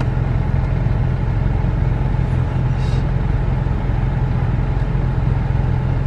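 Steady rush of the air-conditioning blower inside a Chevrolet Camaro's cabin, with a constant low hum beneath it.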